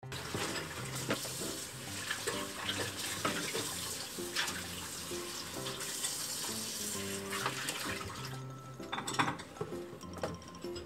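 Paper carrier bag crinkling and rustling as a cat moves with its head inside it; the rustling stops about eight seconds in. Background music with steady low notes plays throughout.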